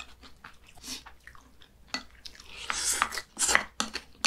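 Close-up eating sounds of people eating kimchi stew: chewing and mouth noises, with short clicks of wooden spoons and chopsticks against ceramic bowls, and a louder rush of noise about three seconds in.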